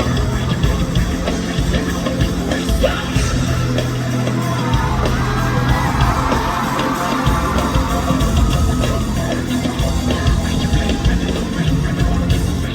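Loud live hip-hop music through a concert hall's PA, with a heavy, steady bass line and a voice yelling over it.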